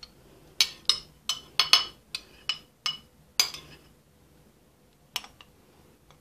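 Metal spoon clinking against a bowl as thick yogurt is scraped out of it: about ten quick clinks in the first three and a half seconds, then two more near the end.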